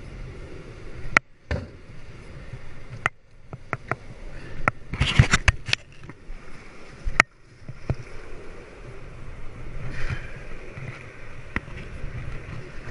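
Shallow surf foam washing around a kayaker and a red plastic surf kayak, with water splashing and several sharp knocks; a dense cluster of splashes about five seconds in.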